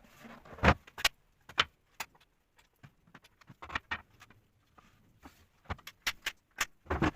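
Wooden knocks and clicks from a linden floor table's folding legs being opened and closed, a string of sharp clacks at irregular intervals.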